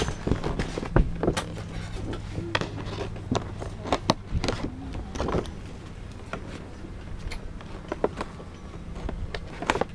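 Taped plastic toy packaging being handled and pulled open: irregular crinkling with sharp clicks and snaps, the loudest about a second in and near the end.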